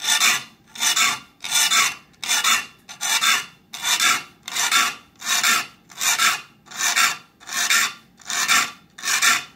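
Three-cornered needle file rasping across the steel teeth of a fine 22-PPI saw, one short stroke per gullet at just under two strokes a second, evenly repeated: sharpening a new saw tooth by tooth.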